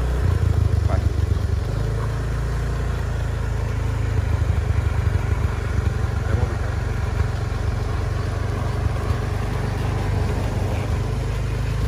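Steady low rumble of a motor vehicle's engine running at low speed.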